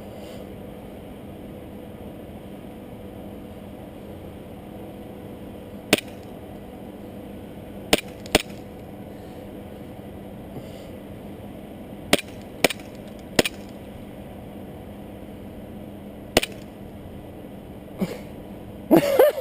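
Airsoft guns firing single shots: about eight sharp snaps, irregularly spaced, with a quick cluster near the end, over a steady low hum.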